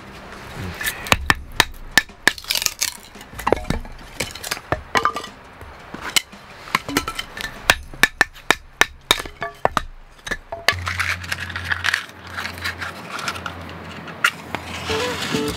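A knife splitting and shaving thin kindling from a dry firewood stick, a quick irregular run of sharp cracks and scrapes of blade on wood. The strokes stop about ten and a half seconds in, and a low steady hum takes over.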